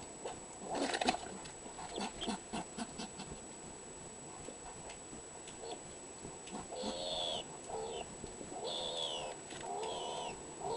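Skunk calling: a series of short chirping, cooing notes, each falling in pitch, through the second half, after a run of sharp clicks and knocks about a second in.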